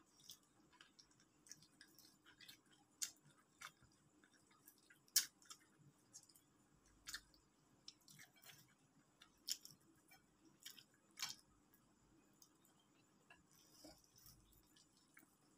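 Fried chicken being eaten by hand: quiet chewing with scattered sharp clicks and crackles, the loudest about five seconds in.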